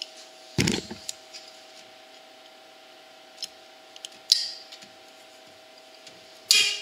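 ATV exhaust springs and vise-grip pliers clicking and clanking against metal as the springs are stretched onto the exhaust hooks. There are a few separate sharp knocks and clicks, the loudest about four seconds in and another near the end, over a faint steady hum.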